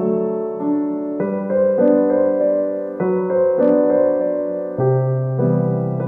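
Background piano music: slow, gentle held chords, with new notes coming in about every half second to a second.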